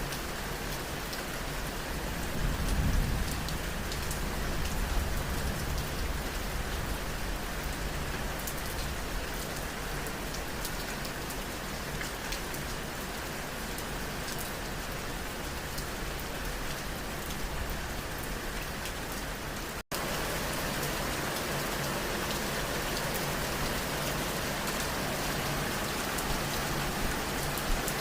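Steady rain falling and pattering on a surface, with a brief low rumble about three seconds in. The sound drops out for an instant about twenty seconds in and comes back slightly louder.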